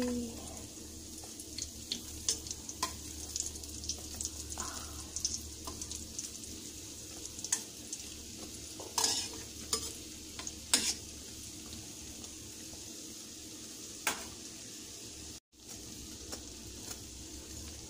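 Odading dough pieces deep-frying in hot oil in a metal pan, a steady sizzle, with a few sharp clicks of metal tongs against the pan as the pieces are turned.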